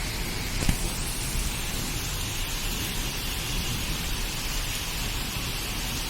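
Moderate monsoon rain falling steadily, an even hiss, with a single sharp tap a little under a second in.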